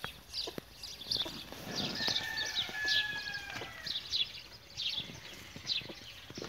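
Chickens calling: quick high chirps repeat throughout, and a long held call sounds in the middle. Faint clicks are scattered among them.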